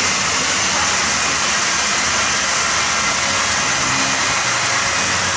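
A steady, loud hiss of rushing air from a machine.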